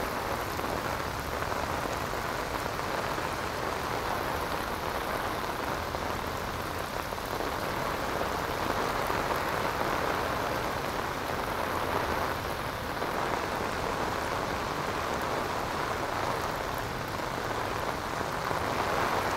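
Heavy rain falling steadily on a paved road and grass, an even hiss that barely changes.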